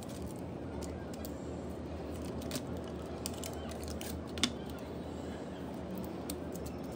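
Light handling of a kraft cardboard photocard mailer and plastic card sleeves, with scattered small clicks and taps, the sharpest about four and a half seconds in, over a steady low background noise.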